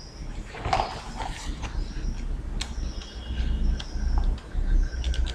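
A steady low hum with several short high-pitched chirps and a few sharp clicks.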